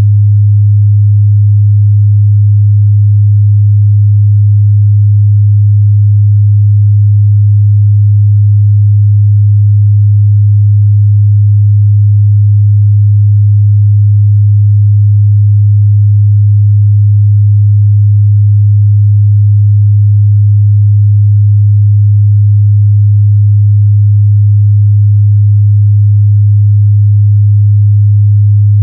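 A steady, loud 103 Hz sine-wave test tone: a pure, unchanging low hum in the mid-bass, used to check a speaker's or headphone's bass response.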